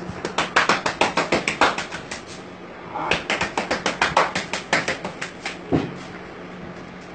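A barber's hands rapidly slapping and tapping a customer's head during a head massage. The strokes are sharp and come about six or seven a second, in two runs: the second begins about three seconds in, and a single last slap follows near six seconds.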